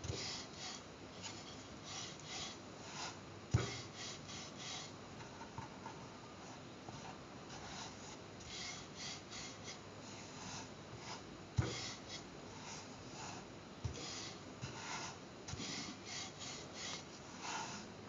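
Wooden rolling pin rolling wheat dough on a floured wooden board: a run of soft, rhythmic rubbing strokes, with a few short knocks, the loudest about three and a half seconds in and near twelve seconds.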